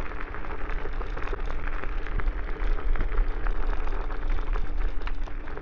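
Electric scooter on street tyres riding over bumpy, damp grass, with constant clatter and rattling as the unsprung rear end is shaken. Wind rumble on the microphone and a steady electric motor hum run underneath.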